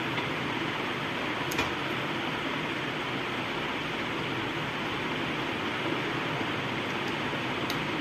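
Steady fan-like background hiss, with two faint clicks, one about one and a half seconds in and one near the end, as small wire-harness connectors are handled and fitted on a monitor's circuit board.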